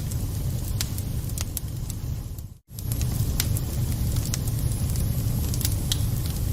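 Wood fire burning in a fireplace: scattered crackles and pops over a steady low rumble. The sound breaks off for an instant about two and a half seconds in, then carries on.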